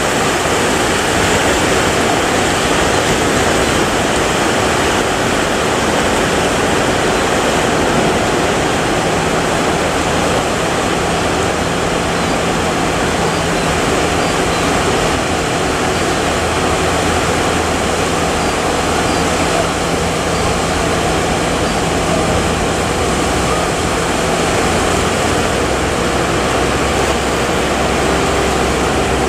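Heavy surf: a continuous loud rush of breaking waves and churning water. A low steady hum joins underneath about a third of the way in and deepens past the middle.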